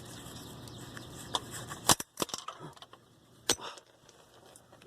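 Metal tools clinking at the starter under the car: a few sharp metallic clicks and knocks from the socket and ratchet, the loudest about two seconds in and again about a second later.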